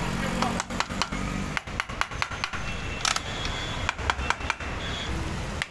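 Soft-faced mallet tapping repeatedly, at irregular intervals, on the aluminium crankcase half of a Hero Splendor Plus engine as it is seated over the crankshaft. A low engine hum runs underneath for the first second and a half.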